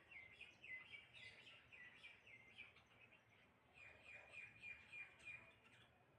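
Birds chirping faintly: a string of short chirps, about two a second. The early notes each drop a little in pitch, and later ones hold a steadier pitch.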